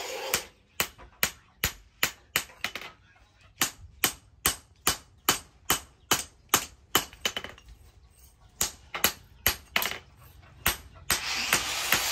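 Hand hammer striking an axe head held with tongs on a steel post anvil, reshaping the broken blade. The sharp blows come about two or three a second, in three runs with short pauses between them. Background music cuts out at the start and comes back near the end.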